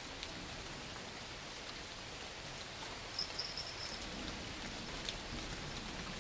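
Rain falling steadily, with scattered sharp drop clicks and a short high chirp a little past the middle.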